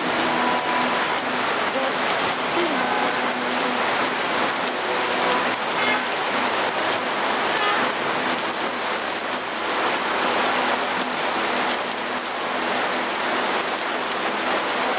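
Heavy rain pouring down, a dense, even hiss that holds steady throughout.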